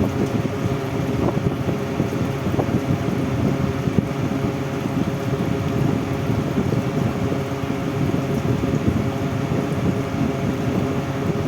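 Air cooler running: a steady fan whir and rush of moving air, with a faint constant hum.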